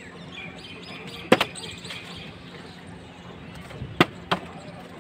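Empty plastic water bottle spun on wet concrete, knocking sharply against the floor: once about a second in, then twice in quick succession near 4 s.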